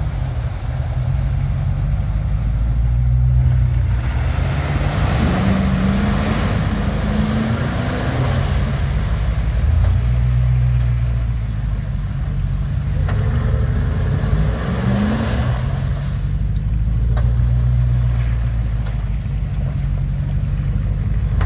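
Land Rover Discovery 2 engine running under load as it ploughs through a deep mud hole, its tyres churning and throwing muddy water. The revs rise twice, about a quarter of the way in and again past halfway, each time with a splashing hiss of spray.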